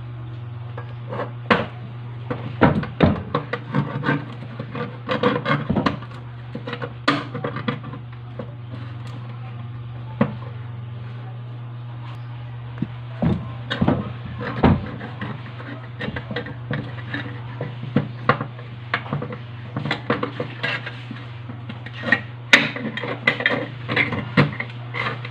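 A kitchen knife worked into and around the lid of a metal food can to cut it open: irregular metallic clicks, taps and scrapes, over a steady low hum.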